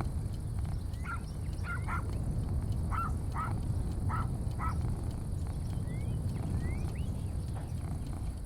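A bird gives a series of about seven short calls, then two quick rising chirps, over a steady low rumble.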